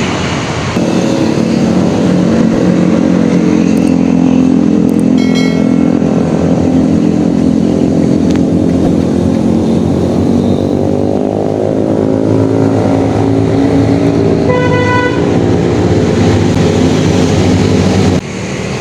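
A motor vehicle engine running steadily close by, its pitch drifting slowly, with a short horn toot about five seconds in and another about ten seconds later. The sound cuts off abruptly just before the end.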